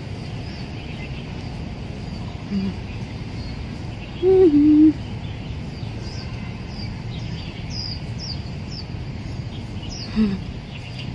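Outdoor park ambience: a steady low background hum with small birds giving short falling chirps in the second half, and one loud, low two-note hoot, stepping down in pitch, about four seconds in.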